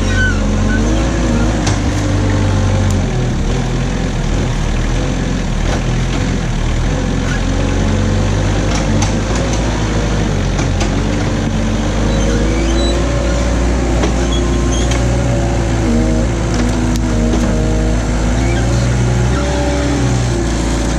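Engine of a Knikmops KM 180 TE articulated mini loader running steadily, its pitch rising and falling as the hydraulics work the boom and tree clamp handling logs.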